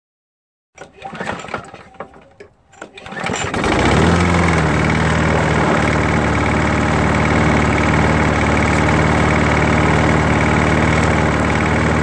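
A Craftsman walk-behind mower's small single-cylinder engine starts up about three and a half seconds in, then runs steadily. A slight clanking runs under the engine note, which the owner suspects is rod knock.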